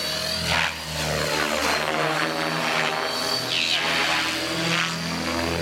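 Electric Align T-Rex 600 EFL Pro RC helicopter in flight: rotor blades whooshing over a steady high motor whine. The pitch rises and falls repeatedly as it swoops around.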